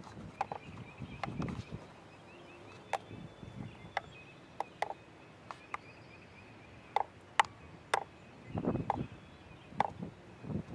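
Wild turkeys clucking: about a dozen short, sharp notes spaced irregularly, with a couple of soft low stretches between them.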